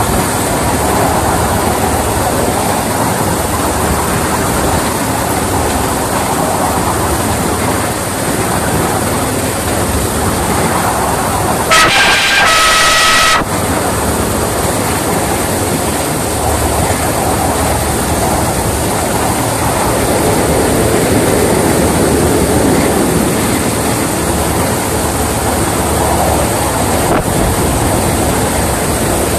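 Miniature railway class 31 locomotive running along the track, heard from the cab as a steady rumble, with one horn blast of about a second and a half midway.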